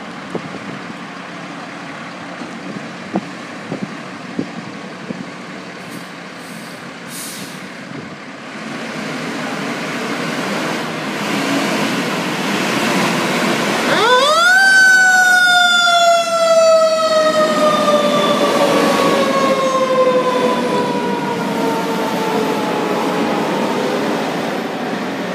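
Fire engine leaving the station: its diesel engine runs steadily and grows louder from about nine seconds in. About halfway through a mechanical siren winds up sharply, then slowly winds down over the next ten seconds.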